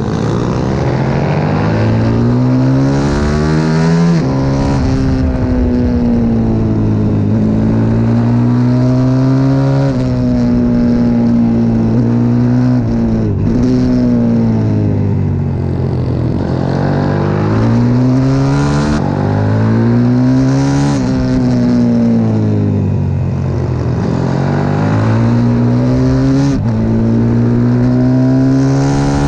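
CW 140 pit bike's single-cylinder four-stroke engine heard onboard at race pace: the revs climb, drop sharply at each upshift and fall away when the throttle is eased for corners, then climb again, over and over.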